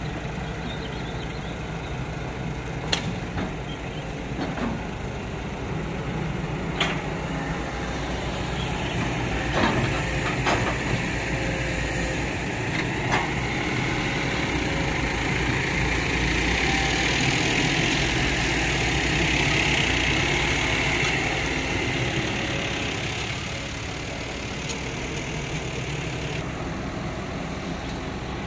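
Kobelco hydraulic excavator's diesel engine running steadily as it digs and swings loads of soil. It works harder and louder for several seconds in the middle, and a few sharp knocks come in the first half.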